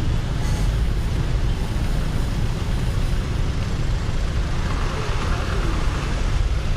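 Steady city street traffic: the running engines and tyres of passing vehicles make a continuous rumble. One passes closer and louder from about four and a half seconds in.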